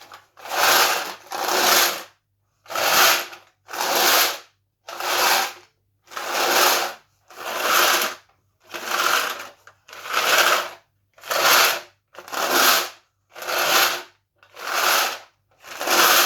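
Glass pebbles rattling and sliding across a tin foil baking tray as it is shaken back and forth, a really loud rattling rush with each sweep, about once a second.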